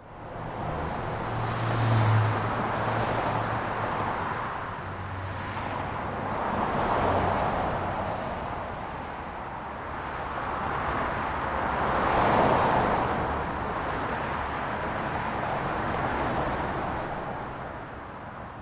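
Road traffic: vehicles passing one after another with a continuous rush of tyre and engine noise, swelling as they go by, loudest about two, seven and twelve seconds in. A low engine drone comes with the first pass.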